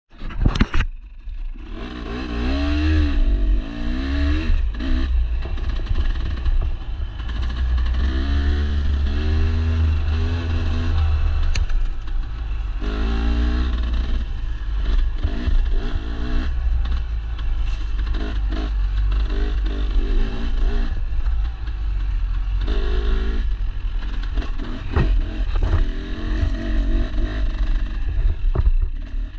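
Dirt bike engine running hard along a rough trail, its pitch rising and falling again and again as the rider works the throttle and gears, under a steady low rumble. A few sharp knocks and clatter come through as the bike hits bumps.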